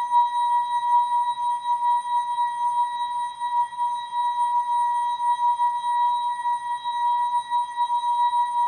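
ASKFM notification sound effect slowed down and stretched into one steady held tone with fainter higher overtones, its loudness wavering quickly.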